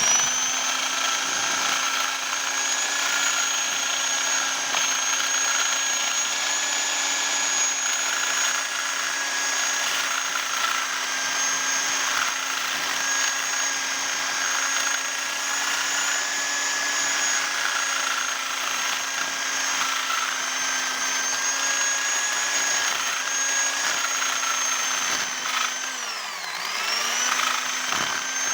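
Electric drill running steadily with a motorcycle engine valve chucked in it, spinning the valve to clean carbon deposits off. Near the end the drill winds down briefly and spins back up.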